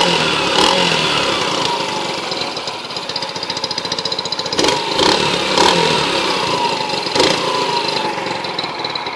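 Yamaha Factor motorcycle's single-cylinder engine running with a hose pulled out of the exhaust, giving it a sportier note. The throttle is blipped several times, near the start, in a cluster about halfway through and once more later, and each time the revs fall back towards idle.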